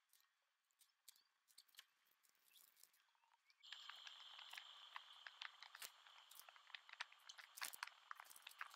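Faint crinkling and clicking of small plastic zip-top bags of diamond-painting drills and clear plastic storage containers being handled. About three and a half seconds in, a faint steady high hiss comes in underneath the clicks.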